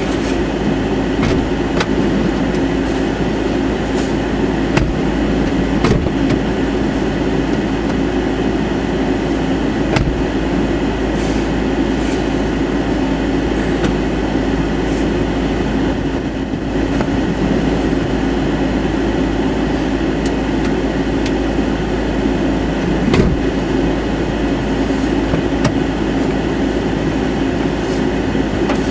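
Steady drone of a vehicle idling, heard from inside the cabin, with a few scattered faint ticks.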